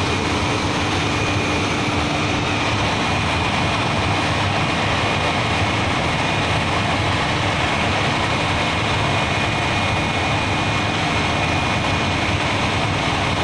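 Fire truck's diesel engine idling steadily: an even, unbroken rumble with a faint steady hum through it.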